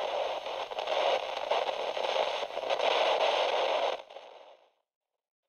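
Static hiss and crackle of an old tabletop radio being tuned between stations; it drops away about four seconds in and fades out.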